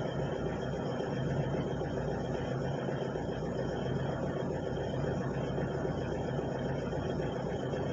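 Excavator's diesel engine running steadily at an even speed, a low constant drone with no changes in pitch or level.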